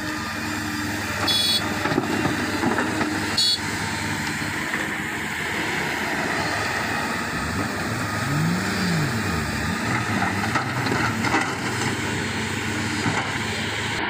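Diesel engine and hydraulics of an XCMG XE210 crawler excavator running under load as it digs and swings, its pitch rising and falling about eight to ten seconds in. Two short clicks come in the first few seconds.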